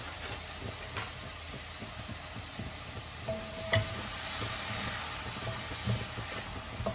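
Frozen corn kernels, onions and moong dal sizzling with no oil in a stainless steel pan while a spatula stirs them. A steady hiss grows brighter about halfway through, and the spatula knocks and scrapes against the pan a few times, loudest a little past halfway.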